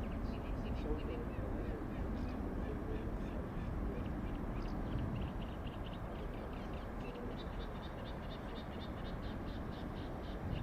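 Steady low rumble of distant jet engines, with a run of short high chirps about three to four a second that grow denser in the second half.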